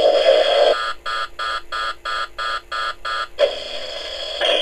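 Hasbro Neutrona Wand toy's electronic blaster sound effect from its built-in speaker: a steady hissing firing sound breaks off about a second in for a pulsing electronic warning beep, about three beeps a second, lasting about two and a half seconds, then the firing sound resumes. The beeping is the wand's overload warning from holding the fire button down; after it the wand shuts itself off.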